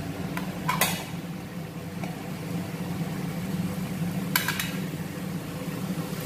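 Spatula stirring chopped tomatoes into a masala paste in a kadhai, with two short scrapes against the pan, about a second in and again at about four and a half seconds, over a steady low hum.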